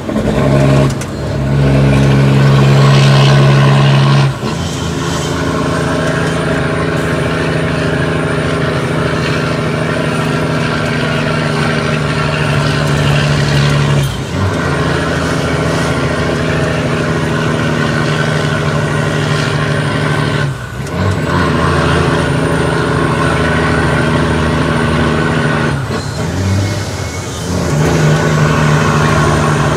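Cummins ISX diesel truck engine running and pulling, with five short breaks in the engine note where the 18-speed transmission is shifted. After two of the shifts a thin high whine climbs and then holds.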